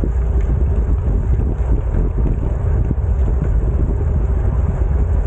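Wind buffeting the microphone of a moving rider: a steady, loud low rumble.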